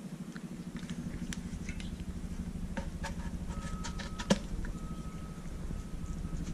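Light clicks and taps of a new thermostat being handled and fitted into its housing, the loudest a sharp click a little past halfway. They sit over a steady low hum with a fast pulse.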